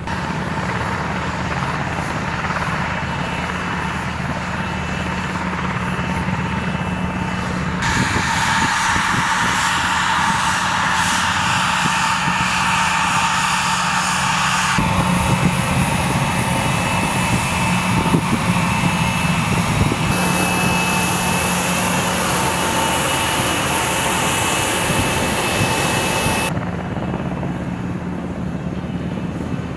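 The MQ-4C Triton's single turbofan jet engine running at low power, a steady high whine over a low rumble as the drone rolls out and taxis. The whine's strength and pitch mix jump abruptly a few times.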